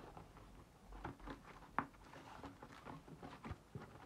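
Faint rustling and small taps from a box of colouring pencils being handled and opened by hand, with one sharper click about two seconds in.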